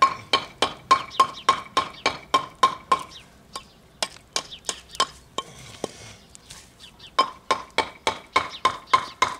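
A hammer striking a thin concrete block over and over to score it and break off a piece to size. Each blow is a sharp clink with a short ring, about three to four a second. The blows slow and pause in the middle, then come quickly again near the end.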